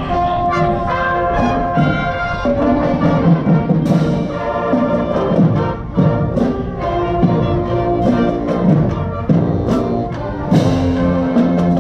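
Music played by brass instruments such as trumpets and trombones, with held notes over drum hits.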